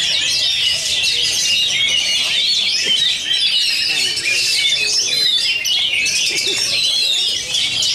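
Oriental magpie-robin (kacer) in full contest song, loud and unbroken, with fast varied phrases overlapping the songs of other caged birds.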